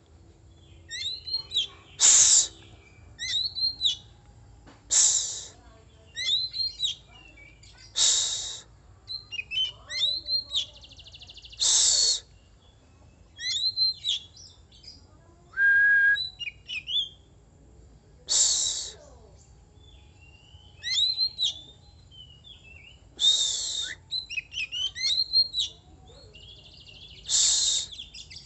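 Oriental magpie-robin (kacer) singing: short bursts of rapid chirps and whistles, broken every few seconds by a loud harsh rasping note.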